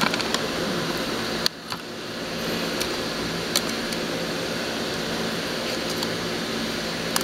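Steady mechanical room hum, with a few small clicks from hands handling the hook and crab.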